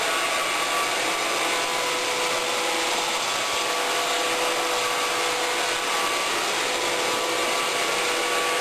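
iRobot Roomba 530 robot vacuum cleaning, its motor and brushes giving a steady whir with a faint hum.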